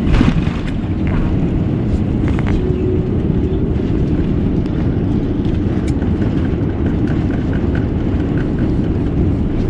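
Airbus A350-900 touching down, with a sudden thump right at the start, then the steady loud rumble of the rollout heard from inside the cabin, with ground spoilers raised on the wing.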